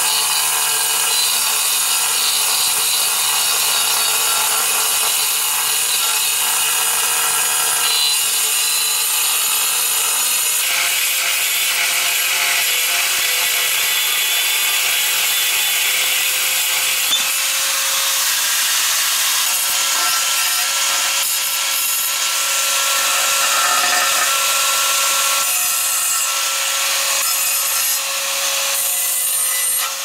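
Power tool cutting or grinding steadily, a continuous hiss with a steady whine. The pitch of the whine shifts about ten seconds in.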